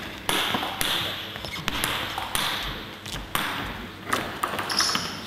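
Table tennis ball bouncing: a few sharp pings and taps spaced irregularly over several seconds.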